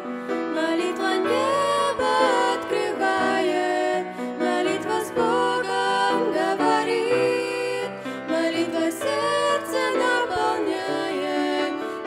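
Slow, gentle hymn music: a gliding melody over sustained accompaniment, with no clear sung words.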